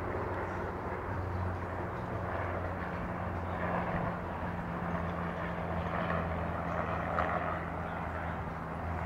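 A steady low mechanical hum, like an engine running at a distance, under a wash of outdoor noise that swells and fades a little.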